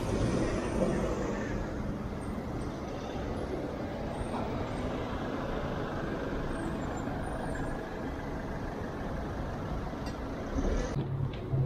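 Steady road traffic noise around a moving bicycle. A large vehicle's engine hums close by at the start and again near the end, where a few sharp clicks come in.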